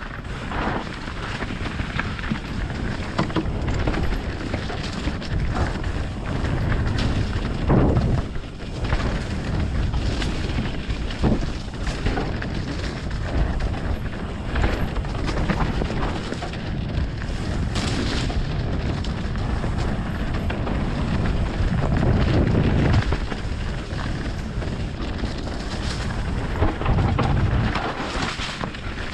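Mountain bike ridden fast down a dirt trail: wind buffeting the microphone over tyre roar and the bike rattling, with repeated knocks and clatters as it hits bumps.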